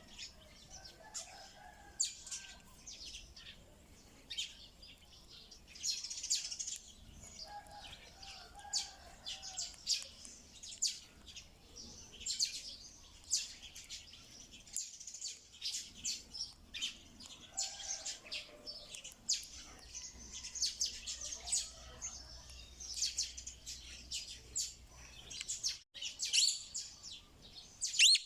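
Parrots calling: a dense stream of short, sharp, high chirps and screeches, with lower warbling calls mixed in now and then.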